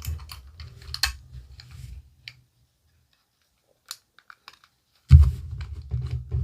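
Plastic action figure and docking station parts being handled and fitted together: a run of small plastic clicks and knocks, then a lull with a few faint ticks, and a loud bump about five seconds in as the handling starts again.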